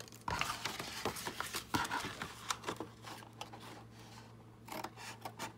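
Scissors cutting thin cardboard box flaps: a run of short, sharp snips with small pauses, then a few more near the end.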